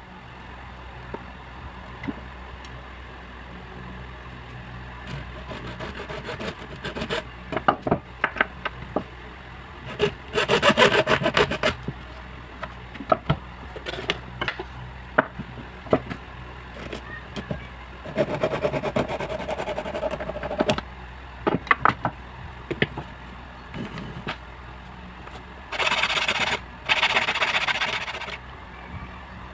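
Hands at work on a small DC motor: scattered clicks and knocks, with three short bursts of rasping, scraping noise about ten, eighteen and twenty-six seconds in.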